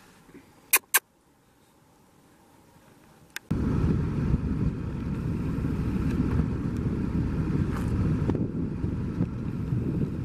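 Two sharp clicks close together about a second in. Then, from about three and a half seconds, a loud, steady low rumble of noise on the camera's microphone as the camera swings, stopping abruptly at the end.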